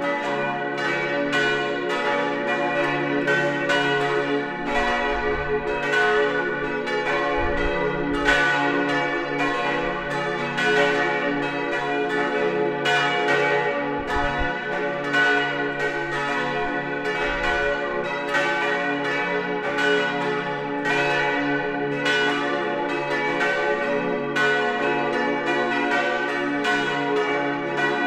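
Full peal of a parish church's bronze bells, the main peal tuned d', f♯', a' and b', with the largest a 1,481 kg bell. Their strikes overlap without a break into one continuous, dense ringing.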